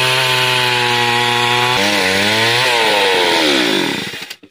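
Two-stroke petrol chainsaw running at full throttle while ripping lengthwise through a squared timber beam. The engine note holds steady, then about three seconds in the throttle is released and the revs fall away, dying out near the end.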